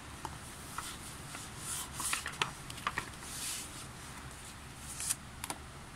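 Paper and card album inclusions being handled: paper sliding and rustling in short strokes, with a few light taps and clicks.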